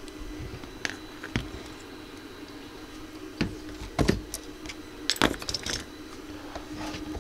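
Metal hand tools clinking and knocking against the workbench as a screwdriver is set aside and pliers are put down, with a quick cluster of small metallic clicks a little past five seconds in. A steady low hum runs underneath.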